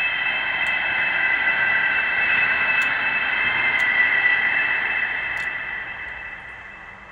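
A steady static-like hiss with a few high held tones in it, fading away over the last two seconds or so.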